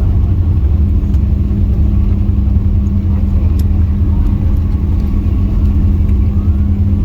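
Steady loud rumble of a Boeing 777-300ER heard from inside the passenger cabin, engines and airflow running evenly with a constant low hum.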